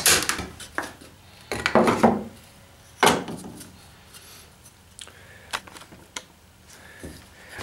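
Irwin Quick-Grip bar clamps being released and pulled off a glued-up wooden piece: a few sharp clicks and knocks, with a cluster about a second and a half in and the loudest knock about three seconds in, then a few lighter taps as the wood is handled.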